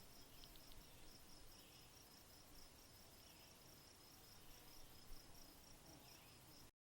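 Near silence: faint hiss, dropping to total silence near the end.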